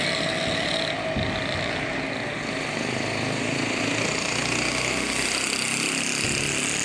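A steady, engine-like drone with a low rumble, holding level throughout; a faint low thud comes about a second in.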